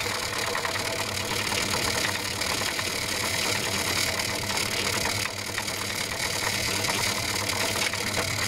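Myford lathe running slowly in back gear with the screw-cutting gearbox driving the carriage, a steady mechanical running noise with a fine rapid ticking, as a small tool takes a light threading pass cutting an 8 TPI internal square thread.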